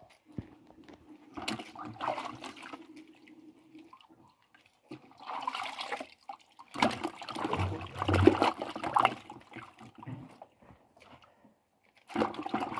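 Peeled cassava roots being rubbed and washed by hand in a bucket of water: sloshing, splashing and dripping in bouts, the longest and loudest in the middle.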